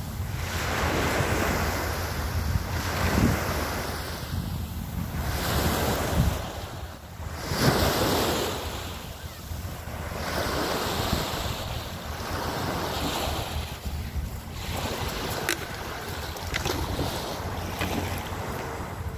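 Small sea waves breaking and washing up on a sandy beach, swelling and fading every couple of seconds, with wind rumbling on the microphone.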